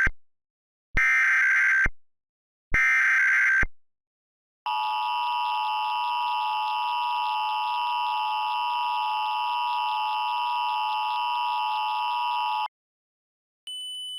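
Emergency Alert System tones from an EAS encoder. The last burst of digital header data ends right away, and two more follow about a second apart. Then comes the long steady two-tone EAS attention signal (853 and 960 Hz), which cuts off after about eight seconds. A quieter single high steady tone begins near the end.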